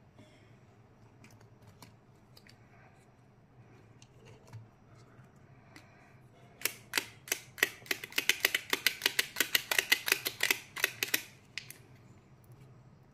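Two small plastic-encased ball candies clicked against each other in quick succession: a run of sharp plastic clicks, about seven or eight a second, starting about six and a half seconds in and stopping some five seconds later. Before it, a few faint clicks of the capsules being handled.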